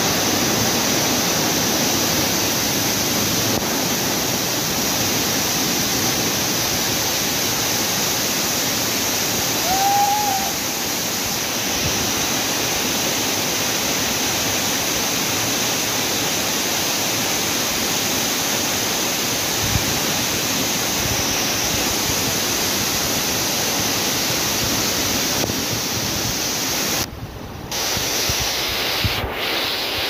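Waterfall crashing onto rocks and a pool: a steady, unbroken rush of falling water.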